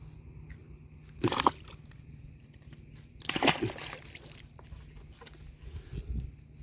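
Water sloshing and splashing twice, about a second in and again from about three seconds in, as gravel is worked in a river, over a steady low hum.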